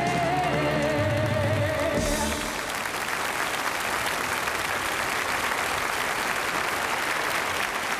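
Jazz vocal group and band holding the final note of a song, a single sung note wavering with vibrato over a sustained chord, which ends about two seconds in. An audience then applauds.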